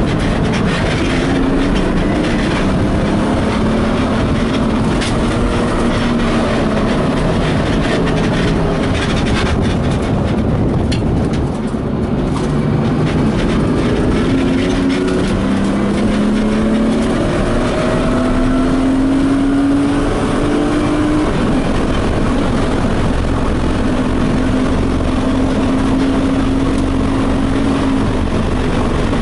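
BMW E36 coupe's engine on track, heard from inside the stripped cabin: the engine note climbs, breaks off and drops again several times as the car accelerates and shifts, then holds a steady pitch near the end. Road and wind noise run loud underneath throughout.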